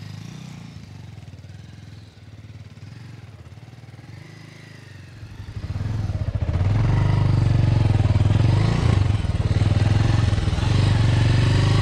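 Motorcycle engine running as the bike pulls away and rides along. Quieter at first, it grows much louder about six seconds in and then runs steadily.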